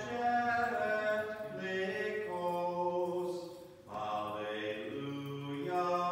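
A male voice sings Byzantine liturgical chant unaccompanied, holding long notes, with a brief break for breath about four seconds in.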